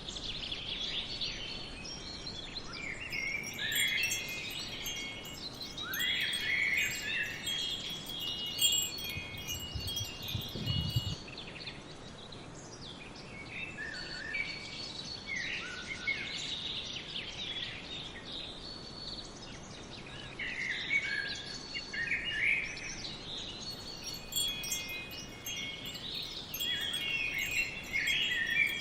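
Wind chimes ringing in scattered clusters of high, bright tones, with birds chirping in the background.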